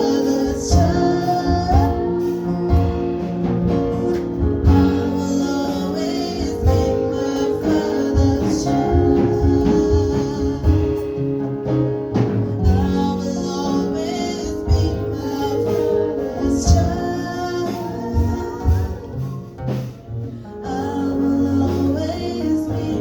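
Gospel music: singing over instruments with a steady beat.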